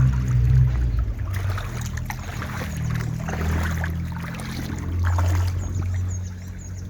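Boots wading through a shallow brook, water sloshing and splashing with each step, over a low rumble.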